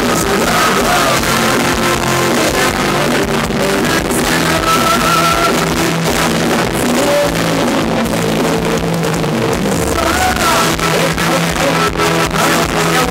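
Live band playing Thai ramwong dance music loud through a PA, with a steady bass line and a singer holding long, wavering notes over it.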